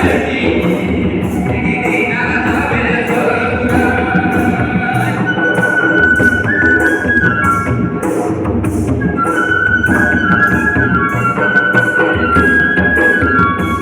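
Indian folk music: a melody of held notes over a steady percussion beat, about two beats a second.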